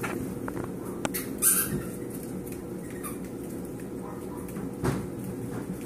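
Yorkshire terrier puppies playing tug-of-war with a rope: a short, high squeal about a second and a half in, and a few sharp knocks, one about a second in and one near the end.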